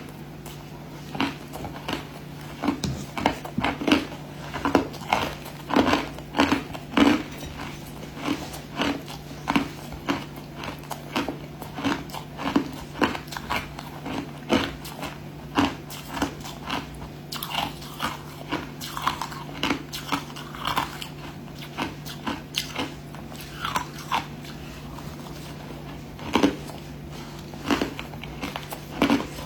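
Crushed ice being bitten and chewed close to the microphone: a steady run of sharp crunches, about one or two a second, with a constant low hum underneath.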